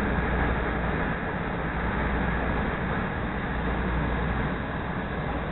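CTA Green Line rapid-transit train running along the track, heard from inside the car: a steady low rumble of wheels on rail with a faint steady high whine over it.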